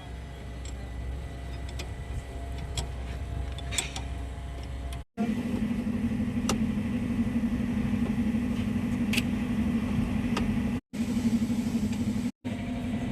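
Truck engine running steadily, with scattered sharp metallic clicks in the first few seconds. The sound breaks off at several edit cuts.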